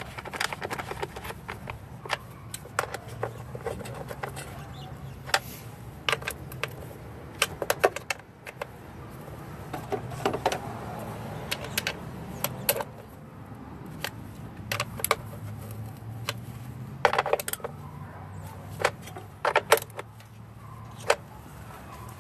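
Metallic clicking and clinking of a ratchet and 10 mm socket snugging down the fasteners of a plastic engine cover, in short irregular runs of clicks.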